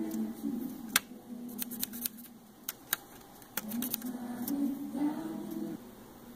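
Sharp clicks and taps from handling a tape measure and pencil against wood, the loudest about a second in. In two stretches a low hummed tune sounds alongside.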